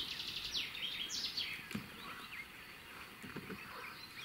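A small bird singing: a quick run of high falling notes in the first second and a half, then fainter chirps, over a steady outdoor background hiss. A few soft low knocks come near the middle.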